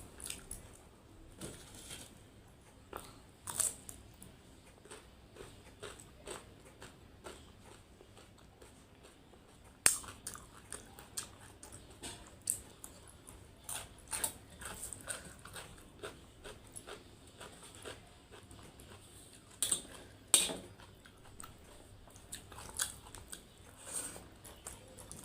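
A person eating chicken curry and rice close to the microphone: wet chewing and lip smacks, with scattered sharp clicks, the loudest about ten and twenty seconds in.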